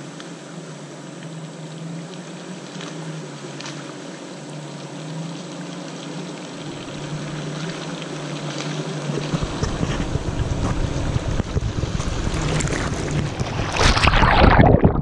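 Ford pickup truck's engine running as it drives closer through a flooded mud trail, growing steadily louder. Near the end it splashes through the mud hole right at the microphone, with loud sloshing of water and mud.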